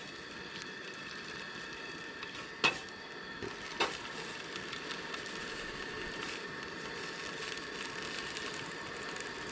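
Camp stove burner hissing steadily under a pot of water being brought to the boil. Two sharp knocks come about a second apart, a few seconds in.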